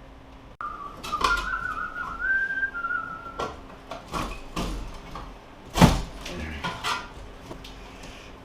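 A man whistling a few wavering notes for about three seconds, over scattered clicks and knocks from hand work on an old wall outlet box. A single sharp knock about six seconds in is the loudest sound.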